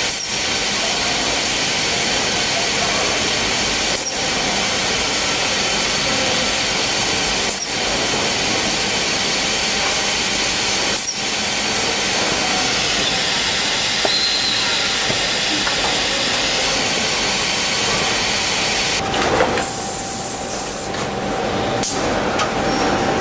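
Steady loud hissing din of automated CRT production-line machinery, with a faint click about every three and a half seconds. Near the end comes a brief, sharper burst of hiss.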